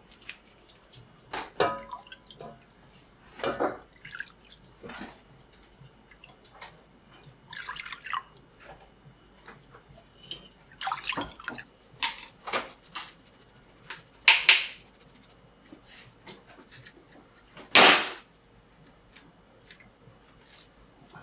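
Kitchen work sounds: irregular short knocks and clinks of utensils and dishes, with a few brief splashes of water, the loudest about two-thirds of the way through and near the end.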